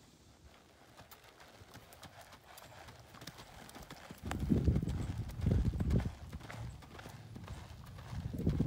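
Hoofbeats of a paint mare loping on an arena's sand footing, faint at first and much louder from about halfway as she passes close, with dull low thuds.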